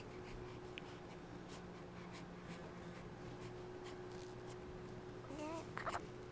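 Faint rustling of a newborn baby's clothing and small clicks as she moves in a bouncy chair, over a steady low hum. About five and a half seconds in, the baby makes a brief wavering coo.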